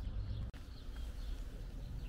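Small birds chirping faintly in the background over a low rumble, with a cat eating wet food from a bowl; the sound drops out briefly about half a second in.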